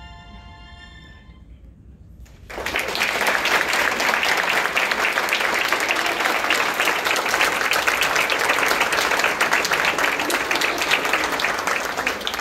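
A held musical chord fades out in the first second. About two and a half seconds in, an audience breaks into loud, steady applause that goes on for about ten seconds.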